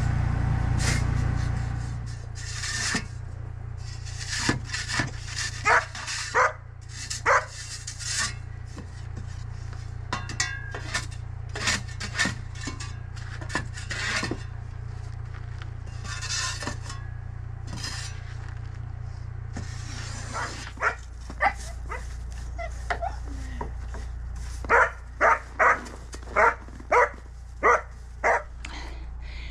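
A dog barking again and again, ending in a quick run of about seven barks near the end. Between the barks a hand snow shovel scrapes and digs through snow, over a steady low hum.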